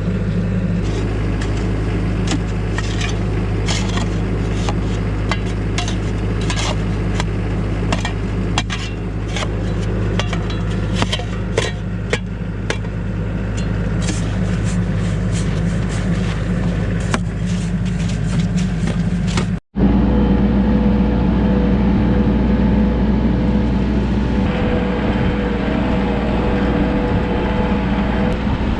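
Vehicle engine running steadily, with many sharp clicks and rattles over it for the first half. A brief break about twenty seconds in, after which the engine continues with a steady higher whine added.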